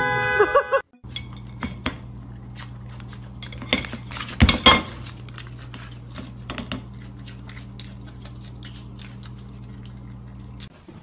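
A ceramic plate clicking and clinking on a wooden table as a small animal eats salad from it, with a louder clatter about four and a half seconds in, over a steady electrical hum. A loud held tone cuts off within the first second.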